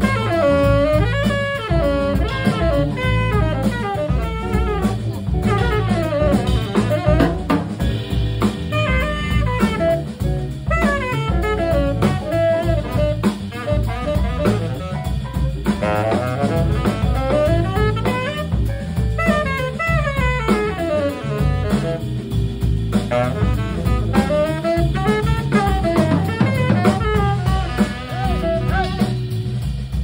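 Live jazz combo playing: a saxophone solos in fast rising and falling runs over drum kit and bass.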